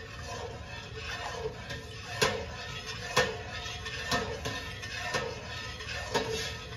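Long-handled metal spoon stirring soy milk in a stainless steel stockpot, clinking against the pot's side about once a second as the milk is heated toward the boil.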